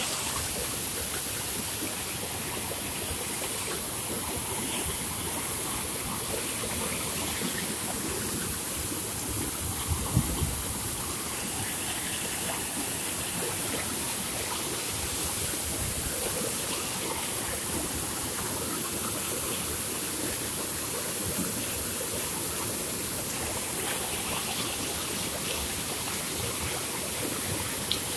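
Water gushing from several large pump outlet pipes and splashing into a churning concrete channel, a steady rushing sound. A few brief low thumps about ten seconds in.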